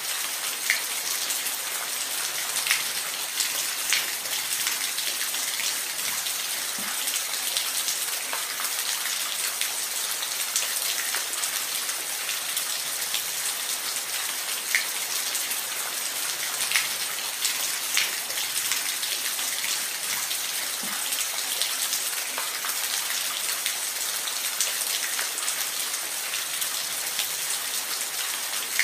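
Steady rain with a constant hiss and scattered individual drops ticking sharply on a surface.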